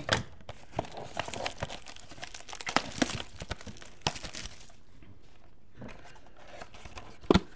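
Packaging of a 2015 Topps Strata football card box and pack being opened by hand: irregular crinkling and tearing of the wrapper, with a sharp snap near the end.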